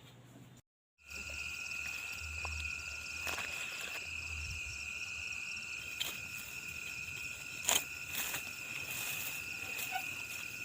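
Chorus of crickets or similar night insects trilling steadily on a high, even pitch, starting after a brief break about a second in, with a few faint clicks or knocks.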